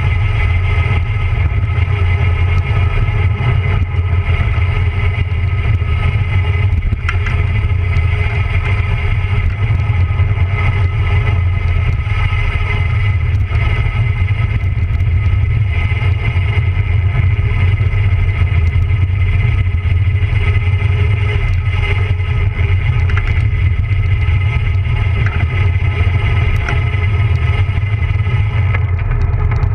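Steady roar of wind buffeting a bike-mounted camera's microphone, mixed with tyre and road noise from a road bicycle descending at speed. The higher hiss thins out just before the end.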